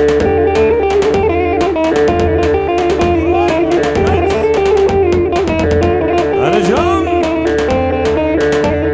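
Live band music for a halay line dance: a plucked-string melody over a steady, regular drum beat, with a pitch glide near the seventh second.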